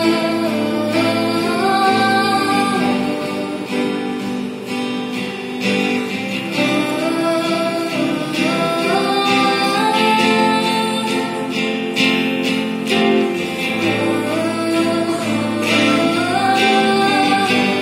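A woman singing a gospel song while strumming an acoustic guitar, her melody rising and falling in long phrases over the steady chords.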